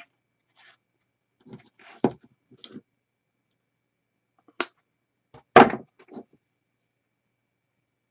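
Handling noises of craft tools: a few short, sharp clicks and knocks as wire cutters and a mini glue gun are handled and put down on a cutting mat, the loudest a little over five seconds in.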